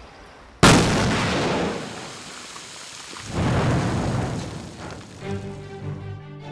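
Controlled rock-blasting charges going off in an excavated hillside. A sudden loud blast about half a second in fades over a second or so, and a second loud swell of blast noise follows about three seconds in. Music comes in near the end.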